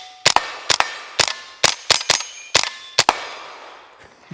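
Tippmann M4 Micro Elite .22 LR pistol fired semi-automatically with standard-velocity rounds: about eight shots in quick succession, roughly two a second. Some shots are followed by the ringing of hit steel targets.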